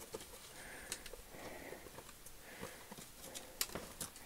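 Trekking pole tips clicking on bare granite every so often as hikers step down a steep rock slab, with a hiker's heavy breathing rising and falling about once a second close to the microphone.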